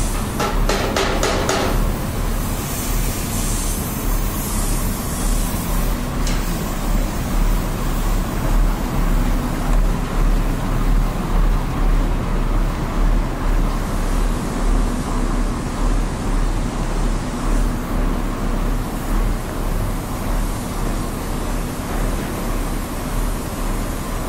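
Corn drying plant machinery running: a loud, steady mechanical drone of blowers and drives with a deep hum underneath and a slow regular pulsing about once a second. A few rattling knocks come in the first two seconds.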